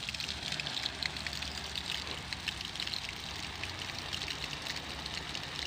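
Water from a homemade sprinkler spraying steadily, the drops making many small ticks, over a low steady hum.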